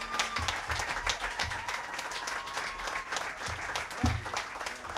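Audience applauding with dense, irregular clapping, and a low thump about four seconds in.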